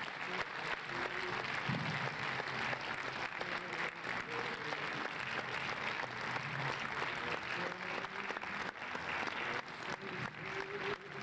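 Audience applauding steadily, a dense patter of many hands clapping, with a few voices faintly underneath.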